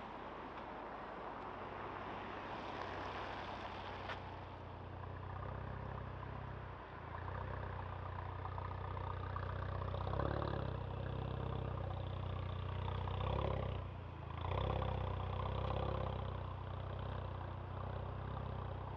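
Porsche Macan 2.0T's turbocharged four-cylinder running at idle through a valved cat-back exhaust, a steady low exhaust note that swells a couple of times, about ten and fifteen seconds in.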